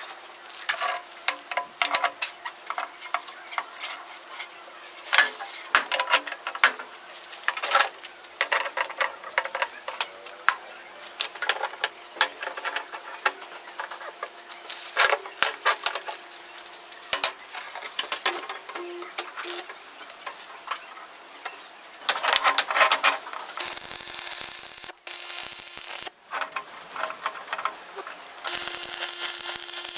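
Metal repair work on a steel loader bucket: irregular sharp clicks and scraping, then a steady hiss that holds for a few seconds about three quarters through and starts again near the end.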